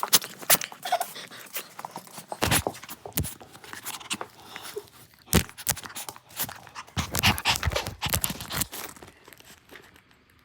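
Small Maltese-Chihuahua mix dog panting, with quick clicks and rustles in irregular bursts that die away near the end.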